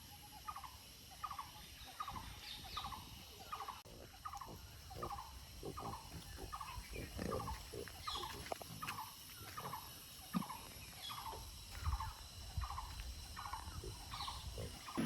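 A bird calling over and over: short calls that dip in pitch, repeated evenly a little more than once a second.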